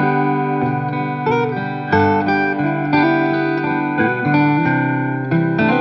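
Intro music: a plucked guitar tune with a steady run of notes.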